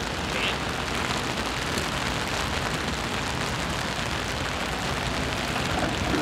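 Steady rain falling on wet pavement and gravel, an even hiss.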